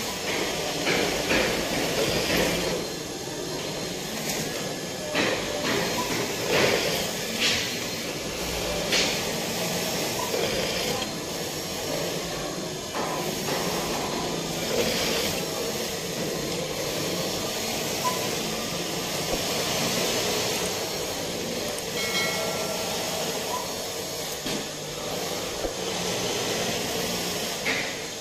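Steady din of industrial sewing machines running on a factory floor, with scattered clicks and knocks.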